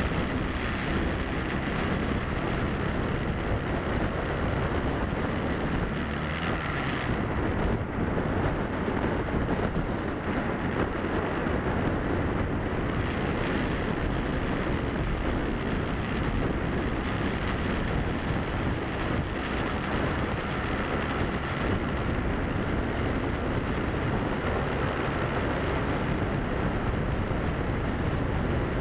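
Wind rushing over the microphone of a handlebar-mounted camera on a Honda Rebel motorcycle at steady road speed, with the bike's engine running underneath.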